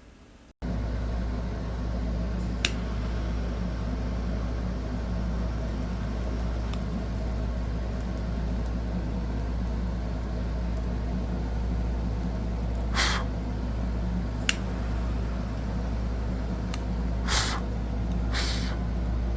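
A steady low mechanical hum that cuts in abruptly, with a few short hissing bursts near the end.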